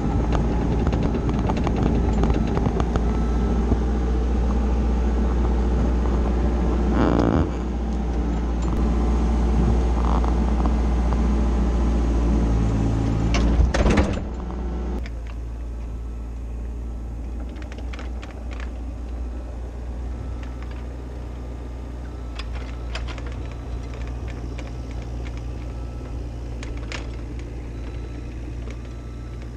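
Mini excavator's diesel engine running steadily, loud and close as heard from inside the cab, with a brief rush of noise about a quarter of the way in and a few sharp clicks about halfway. After the clicks the engine continues as a quieter, steadier hum heard from outside the machine, with occasional light clicks.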